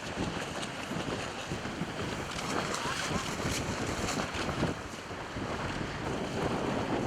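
Strong wind buffeting the microphone in gusts, over the rush and slap of choppy sea water.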